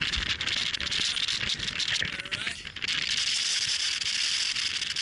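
Steady crackling hiss on a handheld camera's microphone, full of tiny clicks, cutting off sharply just after the end.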